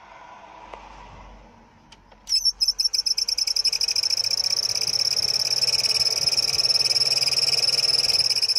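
Heater blower motor of a VW LT28 van running with a loud, high squeal that starts about two seconds in, stuttering at first and then steady, over the motor's hum as it spins up. The squeal is the sign of the defective blower motor, which the owner hopes to cure with a spray lubricant.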